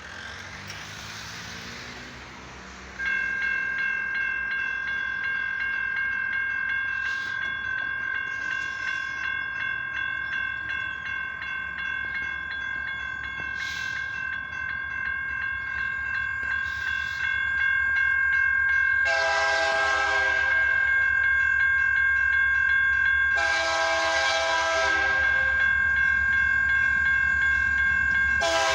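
Railroad crossing warning bell switches on about three seconds in and keeps ringing as a steady high tone. Then a locomotive air horn sounds two long blasts for the crossing and starts another near the end.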